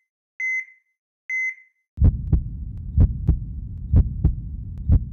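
Two electronic heart-monitor beeps about a second apart. Then a deep heartbeat sound effect starts, a double 'lub-dub' thump about once a second, four times over a low rumble.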